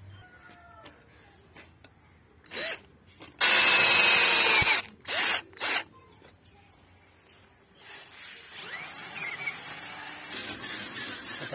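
Cordless drill-driver running in spurts as it drives the screw of a metal hose clip tight: a short burst, a run of just over a second, then two quick bursts to snug it down.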